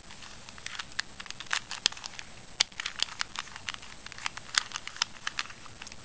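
A 2x2 plastic puzzle cube being turned through an algorithm: a rapid, irregular run of sharp plastic clicks as its layers are twisted.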